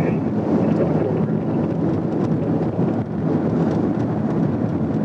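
Police patrol car running at highway speed: a steady, loud rush of engine, tyre and wind noise.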